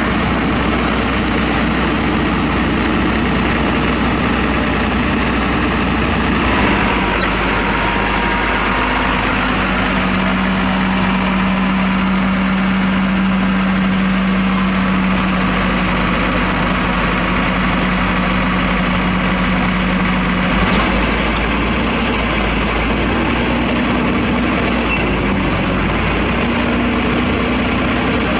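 Heavy diesel engines of a self-loader truck and a tracked excavator running at a steady idle. The sound changes character about a quarter of the way in and again about three quarters in, with a steady droning hum through the middle stretch.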